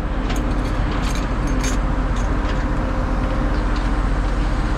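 Diesel semi-truck engine idling steadily, a low rumble with a constant hum, with a few faint clicks over it.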